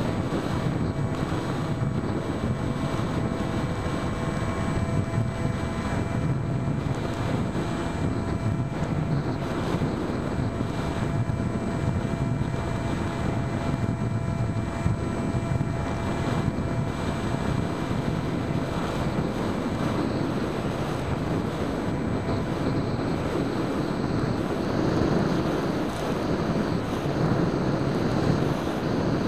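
Steady wind rush over the onboard camera's microphone of an EasyStar 2 foam RC plane in flight. Under it runs the faint, steady whine of its 1400 kV electric motor and 7x6 propeller, fading somewhat in the second half.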